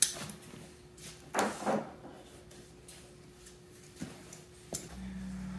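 Faint workshop handling sounds from engine parts being moved. A click, then a short scrape about a second and a half in, and a couple of light taps near the end, over a faint steady hum.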